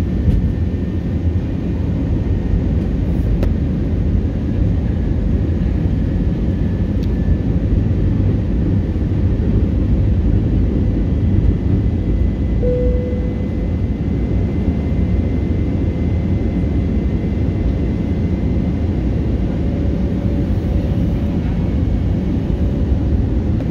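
Steady low roar of an airliner's engines and airflow heard inside the passenger cabin during the descent to land, with a faint thin whine above it.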